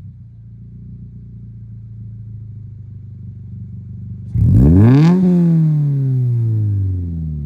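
Subaru BRZ's 2.0-litre flat-four boxer engine idling through a newly fitted Invidia N1 cat-back exhaust, then revved once about four seconds in: a quick climb in revs and a slower fall back to idle.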